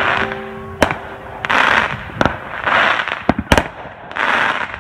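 Aerial fireworks going off: several sharp bangs of shells bursting, with short bursts of crackling between them.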